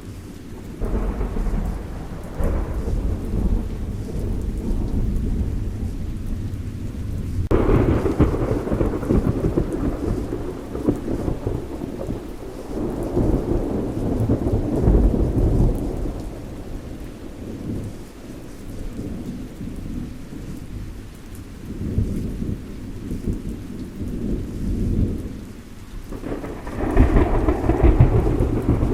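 Thunderstorm: rolling thunder rumbling again and again over steady rain, with a sharp, loud clap about seven seconds in and another loud roll near the end.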